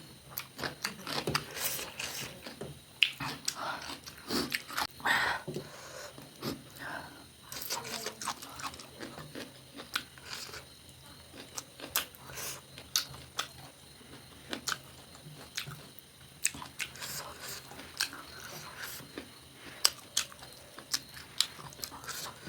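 Close-miked mukbang eating: chewing and biting into fried chicken legs and rice, with crisp crunches and many small wet mouth clicks at irregular intervals.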